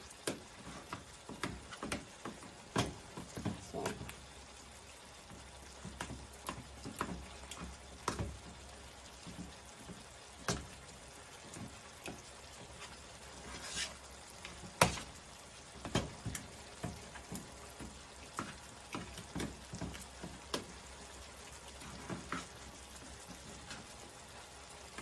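Canned hot chili beans being mashed in a bowl with a utensil: irregular soft squishes and taps of the utensil against the bowl, with one sharper tap about halfway through.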